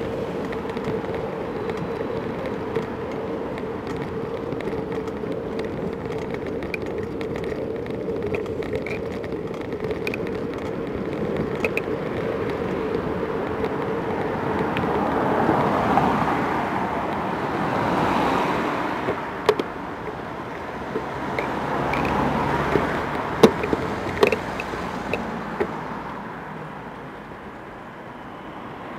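Road traffic heard from a moving bicycle: a steady noise of wind and rolling with a hum through the first half. Cars pass a few times, their noise swelling and fading, and there are several sharp knocks in the second half.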